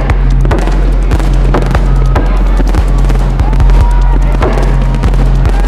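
Fireworks bursting and crackling over a loud music track with a sustained bass and a steady beat about twice a second.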